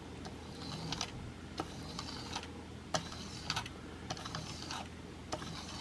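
Steel single-bevel broadhead being drawn in light pulling strokes across buffing compound on thin cardboard over tile: soft scrapes with small ticks as the head is lifted and set back down, about one to two a second.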